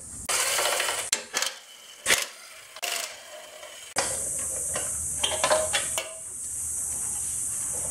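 Clicks, knocks and rattles of a plastic engine shroud on a small single-cylinder mini bike engine being unfastened and pulled off by hand, with one sharper knock about two seconds in. A steady background hiss comes in about four seconds in.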